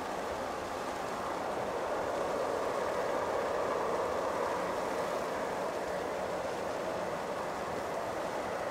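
Boeing 767-300ER jet airliner's turbofan engines running at taxi power: a steady jet rush that swells a little about midway and then eases back.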